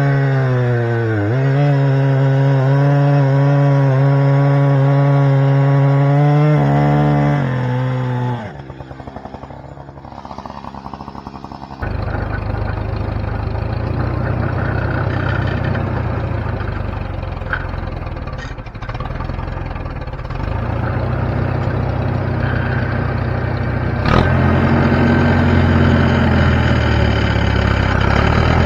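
Band sawmill's gasoline engine running hard, its pitch sagging and recovering as the blade cuts, then dropping away about eight seconds in. After a few quieter seconds a lower, rougher engine sound runs on steadily, with a single sharp click near the end.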